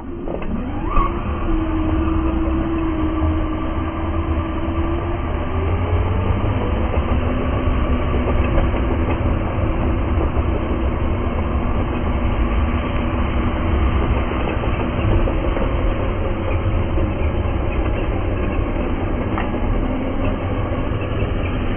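Traxxas X-Maxx RC trucks' brushless electric motors whining steadily under load over a low rumble, as the trucks strain on a tow strap. The whine rises about a second in and climbs again around five to six seconds.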